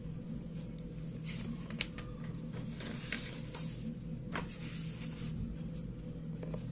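Ballpoint pen writing on a sheet of paper: a handful of short, scratchy strokes over a steady low hum.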